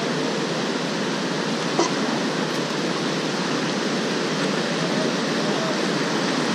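River rapids rushing past a whitewater kayak, a loud, steady wash of moving water close to the boat. A single sharp tap sounds about two seconds in.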